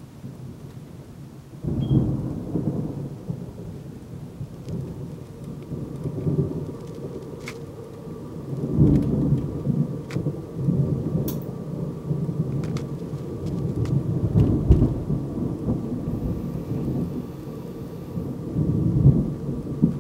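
Thunder rumbling almost without pause, breaking in suddenly about two seconds in and swelling again several times, with rain falling.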